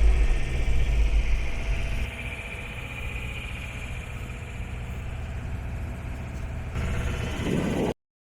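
Sailing yacht's engine running steadily under way, a low drone. It cuts off abruptly near the end.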